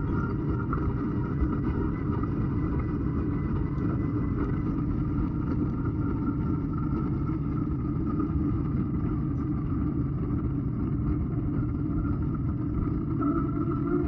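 Steady low rumble of wind and tyre noise on a camera riding along on a moving bicycle, unbroken throughout.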